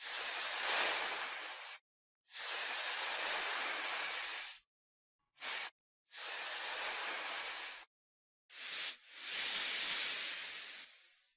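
Hissing noise in six separate bursts, each starting and stopping abruptly: four long ones of about two seconds, a short one at about five and a half seconds, and a short one just before the last, which fades out near the end.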